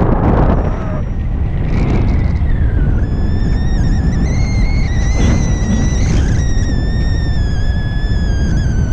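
Wind rushing over a paraglider's camera microphone in flight: a loud, steady low rumble. From about three seconds in, a steady high tone with overtones joins it and slowly drifts lower.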